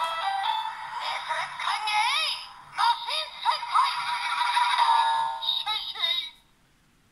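Electronic sound effects and a synthesized jingle with a voice-like call from the DX Tiguardora toy's small speaker, triggered by a loaded Kiramai Silver Avataro Gear, with warbling zap-like pitch sweeps. The playback cuts off about six seconds in.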